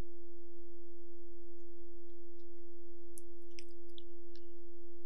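A steady, pure electronic tone held at one pitch with a faint overtone above it, a sine-wave demonstration tone of the kind used to illustrate a sound wave's frequency.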